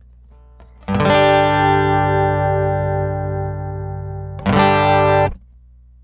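Acoustic guitar played through a Cube Baby AC acoustic guitar pedal: a chord is strummed about a second in and left to ring and fade, then a second chord is struck and cut off after under a second. A faint low hum sits under it before and after the chords.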